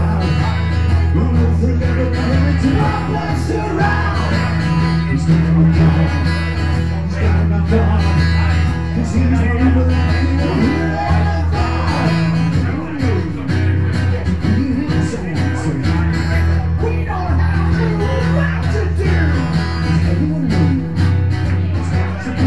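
Live acoustic guitar music with a singing voice, playing steadily through.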